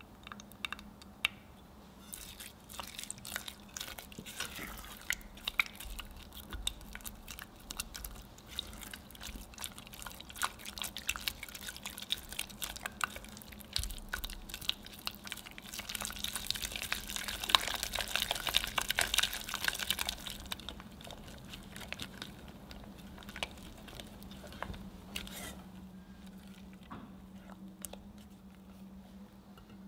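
Silicone spatula mixing beaten egg into choux pastry dough in a saucepan: wet, sticky squelching and slapping, busiest in the middle and tapering off near the end, while the egg is worked in and the paste loosens. A faint steady hum runs underneath.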